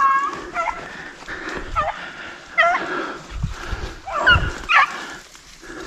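Beagle rabbit hounds giving short, high yelping cries, about half a dozen spread through the few seconds, some bending up and down in pitch.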